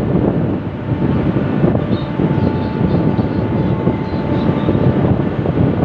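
Wind buffeting the microphone on an open ship's deck, a dense low rumble that flutters without letting up, with a faint steady whine in the middle of it.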